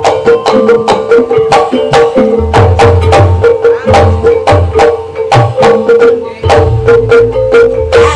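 Live Javanese ebeg accompaniment: gamelan-style struck mallet-instrument notes in a quick, even beat of about four strokes a second over a sustained tone, with low hand-drum (kendang) strokes coming in and out.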